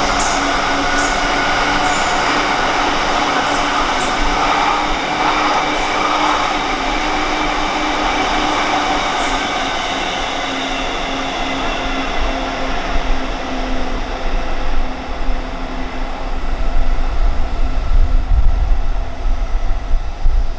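A train rolling past on the tracks: steady wheel-on-rail running noise with some squealing and sharp clicks in the first half. The noise eases a little, then a low rumble rises near the end.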